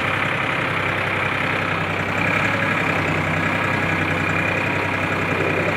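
Farmtrac tractor's diesel engine running at a steady, even speed.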